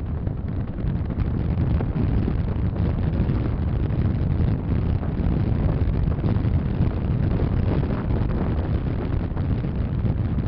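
Strong wind buffeting the microphone while on the move, a steady low rushing rumble with no break, probably mixed with the vehicle's running noise.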